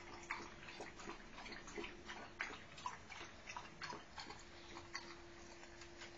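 Dog lapping water from a plastic bowl: irregular quick wet clicks, a few a second, over a faint steady hum.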